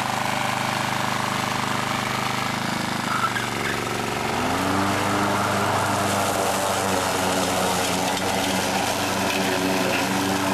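Wolf-Garten ride-on mower's petrol engine running under load as the mower drives over wet, muddy ground. About four and a half seconds in, the engine's pitch rises and then holds steady at the higher speed, a little louder.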